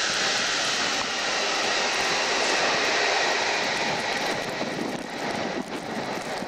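Jet noise from an Ilyushin Il-76's four Soloviev D-30KP turbofans as the freighter rolls along the runway: a steady rushing sound that eases off after about four seconds.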